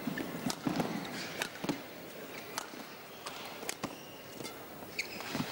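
Badminton rally: sharp cracks of rackets striking the shuttlecock and brief squeaks of court shoes on the floor, every half second to a second, over the steady murmur of the arena crowd.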